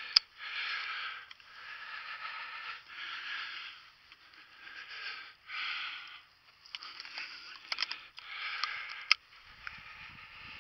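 A hunter breathing hard in a steady rhythm, about one breath a second. Sharp metallic clicks come from a Browning A5 shotgun being handled: the loudest is right at the start, and a few more come near the end as a shell is taken out.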